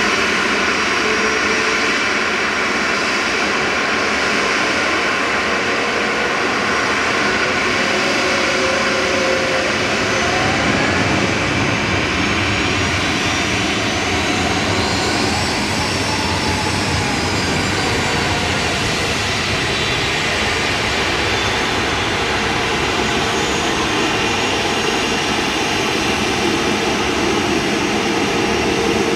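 Jet airliner engines close by, a loud steady noise with a high whine running through it; the low rumble grows stronger about a third of the way in.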